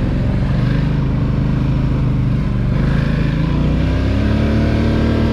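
ATV engine running steadily under way, its pitch stepping up a little about four seconds in.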